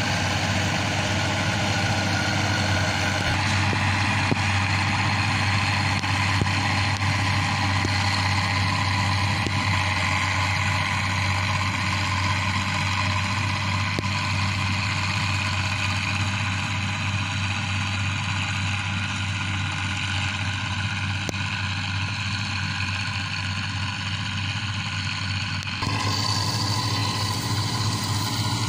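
Bizon ZO56 combine harvester's six-cylinder diesel engine running steadily while the combine harvests. The sound shifts abruptly about three seconds in and again near the end.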